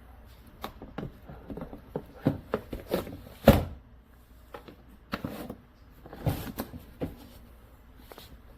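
Irregular knocks, clicks and clatter of hard objects being handled, with one loudest thump about three and a half seconds in.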